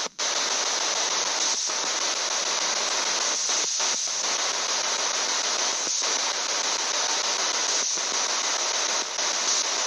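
Spirit box (S-box) sweeping the FM band: a steady rush of radio static, cut by brief dropouts every second or two as it skips between frequencies.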